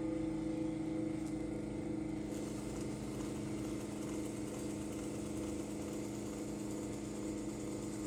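Electric potter's wheel running at a steady speed, its motor giving a constant hum. From about two seconds in, a faint hiss comes in, as the clay is sponged and compressed on the spinning wheel.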